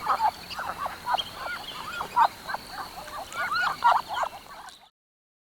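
Musk duck calling: a quick run of short, rising-and-falling chirping notes, several a second, that cuts off abruptly near the end.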